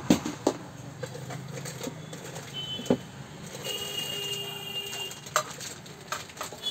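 Plastic bag wrapping rustling and crinkling as it is handled on a rice cooker's inner pot, with a few sharp clicks and knocks. A faint high steady tone sounds for a second or two in the middle.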